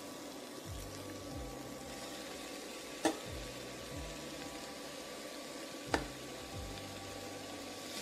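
Spice paste faintly sizzling in a stainless steel pot as shredded chicken is scraped in and stirred with a plastic spatula. The spatula knocks sharply against the pot twice, about 3 and 6 seconds in.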